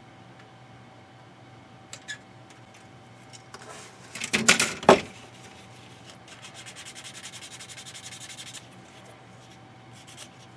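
Plastic model-kit parts being handled and rubbed or scraped against each other: a few light clicks, a short loud burst of scraping about four seconds in, then about two seconds of fast, even rasping strokes.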